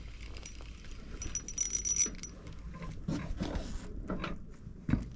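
Light clicks, ticks and rattles of fishing gear being handled in a boat while a trout is reeled in and netted, with a dense run of bright metallic clicking a little over a second in and a thump near the end.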